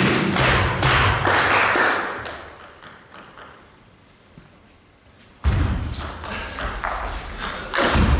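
Table tennis in a hall: rhythmic thumping from the crowd, about three beats a second, fades out over the first two seconds. There is a quiet stretch with the light ping of the ball. From about five and a half seconds in, loud crowd noise swells over the knocks of a rally.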